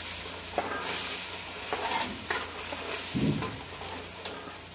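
A steel perforated spoon stirring and scraping tomato masala gravy as it sizzles in a metal kadhai, with scattered clicks of the spoon against the pan. There is a brief low thump a little after three seconds in.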